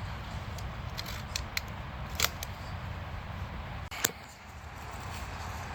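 A few sharp clicks, four in all, the loudest about four seconds in, over a steady low rumble.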